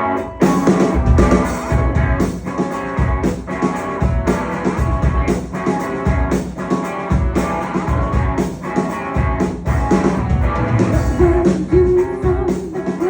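Rock band playing live, with sustained instrument tones over a steady drum beat.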